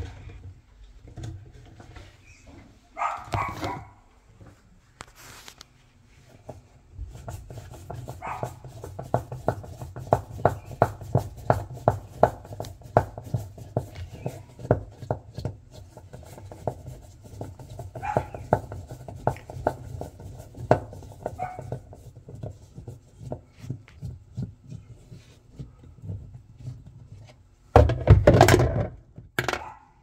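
Screwdriver turning out the centre screw of a twin-tub washing machine's plastic pulsator: a long run of regular clicks and creaks, about three a second, as the screw is worked loose. A louder, noisier burst comes near the end, and a shorter one early on.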